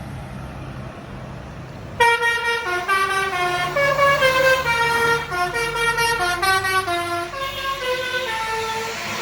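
Tour bus's telolet basuri multi-tone horn playing a quick melody of stepped notes, starting about two seconds in, over the low rumble of the bus engine.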